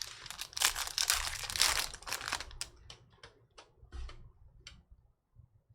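Trading-card pack wrapper being torn open and crinkled for about two and a half seconds, then light clicks of cards being handled.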